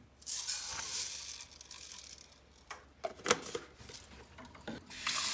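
Rustling and crinkling from handling things, with a few sharp knocks about three seconds in; just before the end, water starts running steadily.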